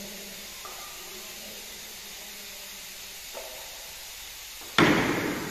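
A steady faint hiss, then a sudden loud bang near the end that dies away over about half a second, from work on the frame-straightening bench.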